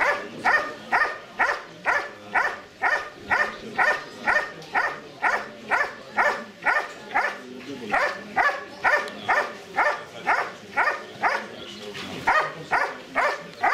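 German Shepherd giving a steady guard bark at the protection helper, short sharp barks at about two and a half a second, with a brief pause about two seconds before the end. This is the hold-and-bark of a dog guarding the helper in IGP protection work.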